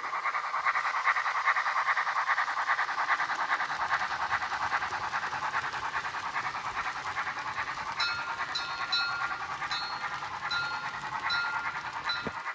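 Steam-locomotive exhaust chuffing, a fast even beat, played through the small onboard speaker by the ESU sound decoder with the Henning BR 52 sound project of a Tillig TT-scale model. About eight seconds in, a string of short high tones starts repeating at uneven intervals over the chuffing.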